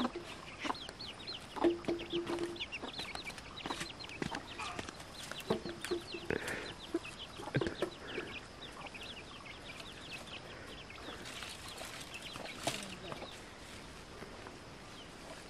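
Chickens clucking, with a quick run of high, falling chirps over the first half that thins out later, and a few short knocks.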